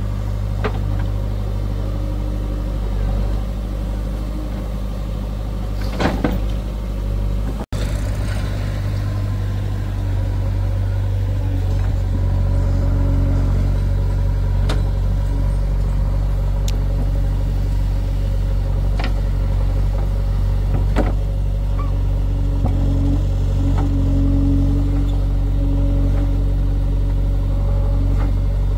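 Heavy diesel machinery engine running steadily, with a few sharp knocks and clatters. The sound cuts out for an instant about eight seconds in, and the engine runs a little louder from about twelve seconds in.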